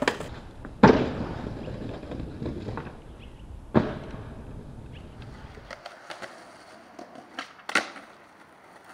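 Skateboard wheels rolling on pavement with sharp clacks of the board hitting the ground, the loudest about a second in and near four seconds. The rolling rumble dies away past halfway, leaving lighter clicks and one more sharp clack near the end.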